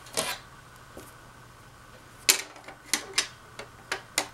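Sharp clicks and clacks of a ceiling fan blade, its metal blade arm and screws being handled and fitted together: one clack near the start, then a quick run of about six from about two seconds in.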